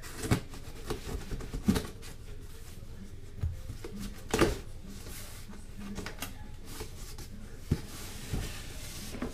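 Cardboard shipping box being handled and tipped over, with a few sharp knocks and softer scraping of cardboard between them.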